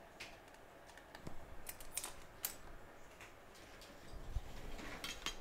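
Scattered light clicks and taps as the board-holding fixture with the iPhone X logic board is handled on the bench mat, with a low rumble coming in near the end.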